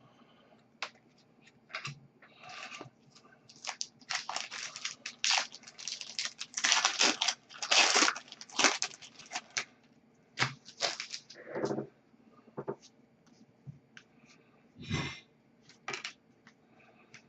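Upper Deck hockey trading cards and their packaging being handled: irregular rustling, sliding and crinkling, busiest a few seconds in, then a handful of scattered scrapes and taps.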